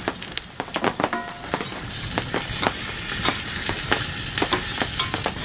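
Campfire of wet wood crackling and hissing, with sharp irregular pops over a steady hiss.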